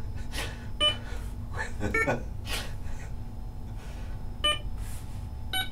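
About four short electronic beeps, spaced roughly a second or more apart, from a computer reaching-task game, sounding as the stylus-driven dot hits and bursts the target.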